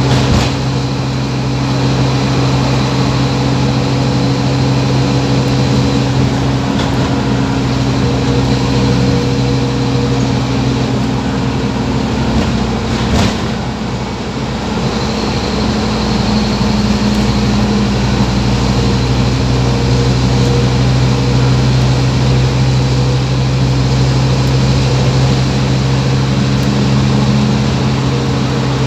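Scania OmniCity bus's engine running with a steady low drone and road noise, heard from inside the passenger saloon. A single sharp knock sounds about halfway through, and the drone shifts in pitch soon after.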